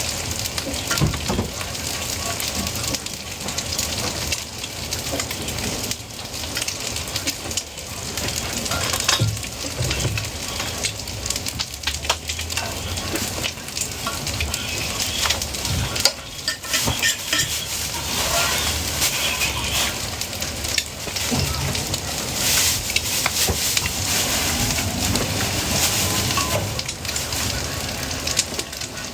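Food frying, a steady sizzle with many short crackles throughout.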